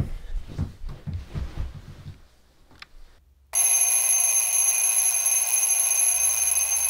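An alarm clock rings loudly and continuously, starting about halfway through. Before it, there are a couple of seconds of soft, low, irregular noises and then a brief near-silence.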